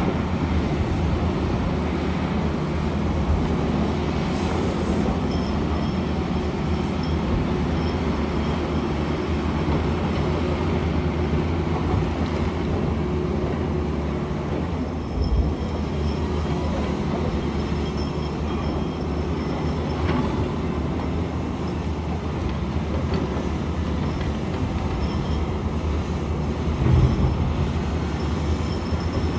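SANY SY500H 50-ton excavator working: a steady diesel engine and hydraulic drone, with a thump about halfway through and a louder thump near the end.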